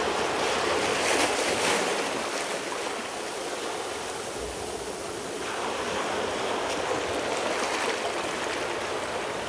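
Recording of ocean waves, a steady wash of surf that eases off around the middle and builds again, played back over loudspeakers with its spatial image resynthesised from the original ambisonic recording.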